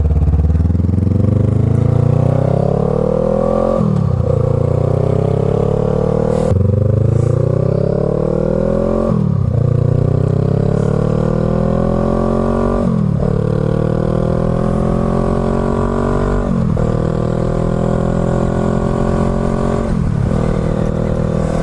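Honda Rebel 500's parallel-twin engine through a Radiant Shorty GP slip-on exhaust, accelerating on the move: the pitch climbs in each gear and drops at about six upshifts, the later gears rising more slowly. It has a moderate bark, not overly loud, because the stock catalytic mid-pipe is still fitted.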